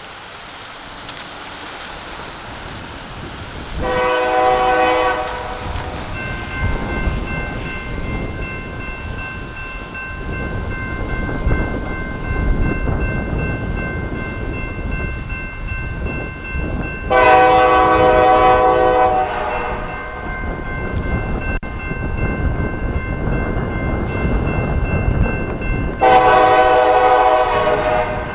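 Diesel freight locomotive approaching, its multi-chime air horn sounded three times: a shorter blast about four seconds in, then two long blasts in the second half. Under the horn, engine and rail rumble grows steadily louder, and a bell rings continuously from about six seconds in.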